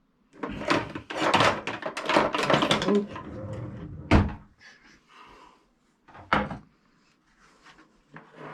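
Kitchen handling noises: clattering and rustling for the first few seconds, then two sharp knocks about four and six seconds in, like containers or cupboard doors being set down or shut.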